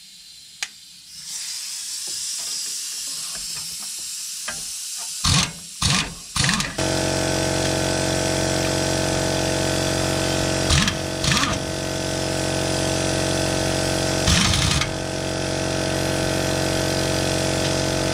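A steady mechanical hum, as from a motor running at constant speed. It starts about seven seconds in after a few short loud noises, with a few brief bursts of noise over it.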